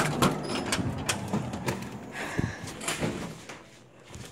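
A door being opened and handled, with a string of knocks and bumps and a brief scraping noise about two seconds in.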